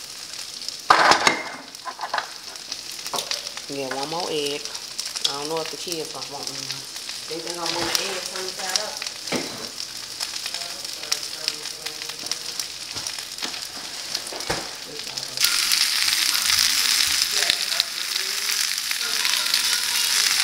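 An egg and spinach frying in a pan on a gas burner, giving a steady sizzle that grows louder about three-quarters of the way through. There is a sharp knock about a second in.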